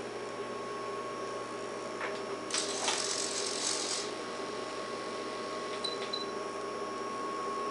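Retract servo in a Dynam PBY Catalina RC model folding its scale wing-tip float up into the wingtip. A click comes about two seconds in, then a buzzing servo run of about a second and a half that stops sharply. A steady high hum runs underneath, and faint ticks come near the end.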